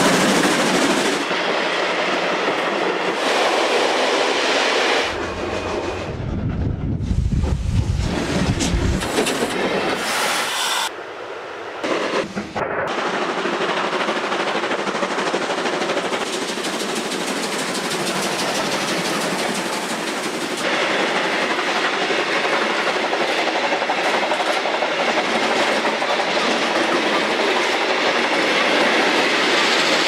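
Steam locomotive hauling a heavy freight train past at speed: its exhaust and the rumble and clatter of the wagons' wheels on the rails. The sound changes abruptly several times where separate passes are cut together, with a deep rumble for a few seconds near the start.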